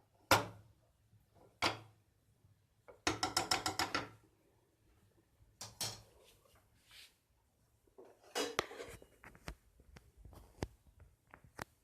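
Kitchen handling sounds: scattered knocks and clicks of utensils and containers, with a quick run of rapid clicks about three seconds in and another cluster of clatter near nine seconds.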